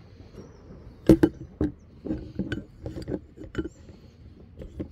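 Metal parts clinking and knocking as a side stand, its screw and a bracket are handled and fitted together by hand: a string of irregular sharp clinks, the loudest a little over a second in.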